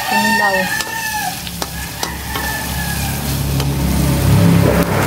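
Sliced bitter gourd stir-frying in oil in a wok, sizzling, with the spatula scraping and clicking against the pan. A rooster crows at the very start, and a low rumble builds through the second half.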